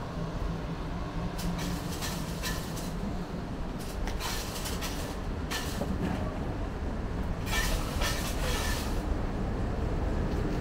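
Steady low rumble of city background noise, with several irregular stretches of hiss laid over it.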